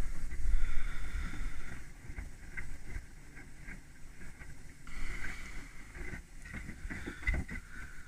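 Beko WTIK84121 front-loading washing machine on its cottons 60 main wash: the drum tumbles the load through soapy water, sloshing and splashing, with a steady motor whine while it turns. The whine drops out about two seconds in as the drum pauses and comes back about five seconds in.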